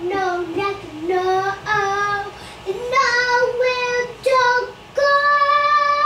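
A toddler singing long drawn-out notes that climb in pitch, ending on a long held note.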